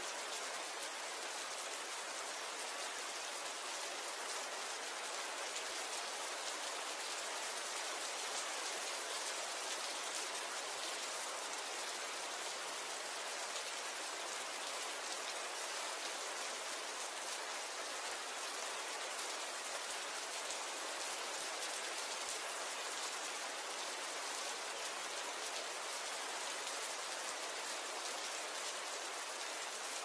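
Steady rain falling, an even hiss of many fine drops with no let-up and little low rumble.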